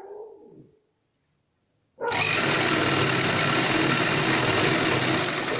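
Sewing machine running steadily at speed, stitching a seam as fabric is fed under the needle. It starts about two seconds in, after a short handling sound and a moment of dead silence.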